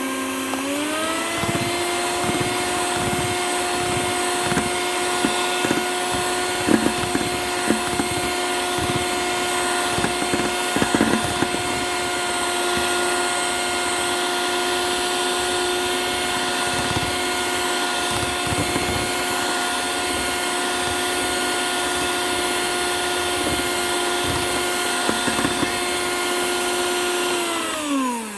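Electric mixer grinder grinding sugar into powder. Its motor whine rises in pitch as it speeds up about a second in, holds steady with scattered rattling knocks, then falls as it winds down at the end.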